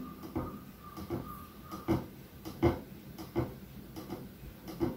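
Whiteboard marker drawing a row of small circles: faint, irregular taps of the felt tip on the board, roughly two a second, with a thin squeak of the tip for about a second near the start.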